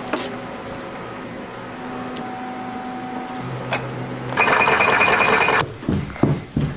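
A steady low hum, then a small electric motor buzzes loudly for about a second, followed by a few short thumps near the end.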